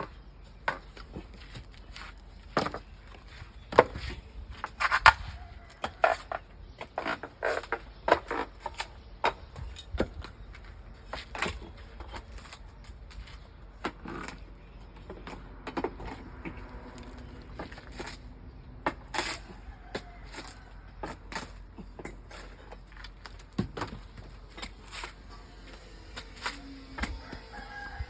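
Irregular hammer blows and clanks, some with a brief metallic ring, as formwork is knocked loose from a freshly cast concrete column.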